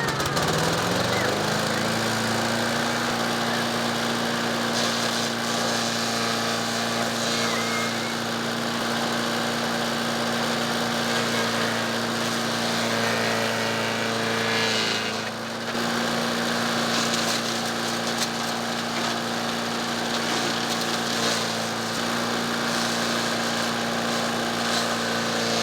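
Small gasoline engine of an MTD Yard Machine chipper-shredder rising in pitch as it comes up to speed over the first couple of seconds, then running steadily at full throttle, with a brief dip about two-thirds of the way through.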